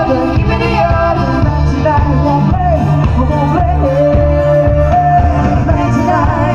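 Live band music over a PA, with heavy bass and a singer carrying the melody, holding one long note about four seconds in.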